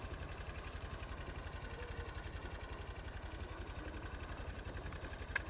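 An engine idling steadily with a rapid, even low throb, and one sharp click near the end.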